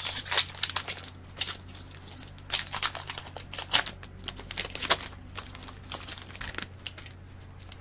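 Trading card pack's wrapper crinkling and tearing as the pack is opened and the cards handled, with irregular sharp crackles.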